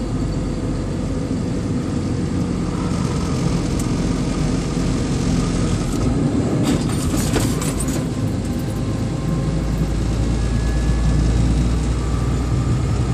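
A vehicle's engine and road noise while driving uphill, heard from inside the cab as a steady low rumble. A short burst of rattling clicks comes about seven seconds in, and the low rumble grows a little stronger after about nine seconds.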